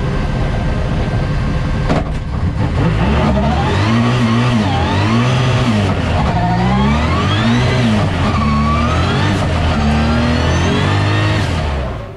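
Nissan VR38DETT twin-turbo 3.8-litre V6 of a drift car, heard from inside the cabin, revving hard with its pitch climbing and falling back again and again. The engine sound drops away suddenly near the end.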